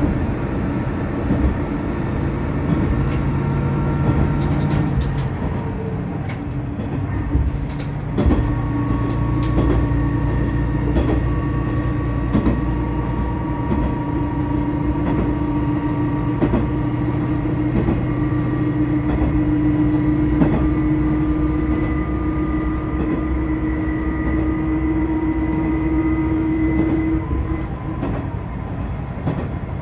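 Tosa Kuroshio Railway 8000-series diesel railcar heard from inside the cabin while running: a steady engine and transmission drone with scattered clicks from the wheels over the track. The engine note shifts about eight seconds in and its main tone drops away near the end.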